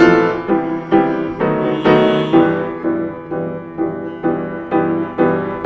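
Piano playing an instrumental passage of repeated chords, about two a second, each struck and left to fade.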